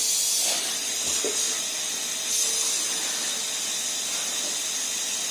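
Numatic Henry cylinder vacuum cleaner running steadily: a hiss of rushing air over a steady motor tone.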